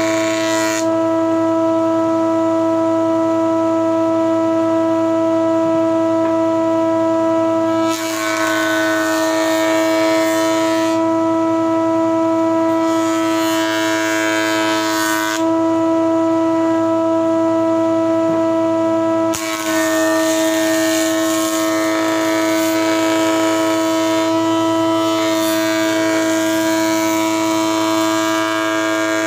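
Homemade electric table planer (jointer) running with a steady high-pitched whine as its cutter head shaves a wooden board being fed across it. A rasping cutting noise joins in about eight seconds in, again around thirteen seconds, and in a long pass from about twenty seconds in.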